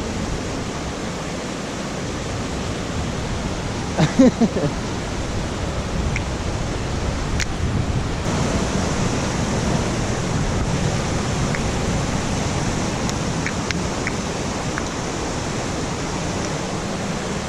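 Steady rushing roar of a waterfall and fast creek. A brief vocal sound rises over it about four seconds in.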